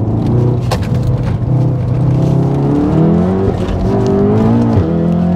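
Stage 3 big-turbo MK7 VW Golf R's turbocharged 2.0-litre four-cylinder heard from inside the cabin, accelerating hard with its pitch climbing, then dropping sharply near the end as the DSG gearbox snaps into the next gear.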